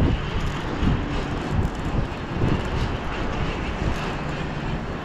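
Wind noise on the microphone: a steady low rush that swells and eases in uneven gusts.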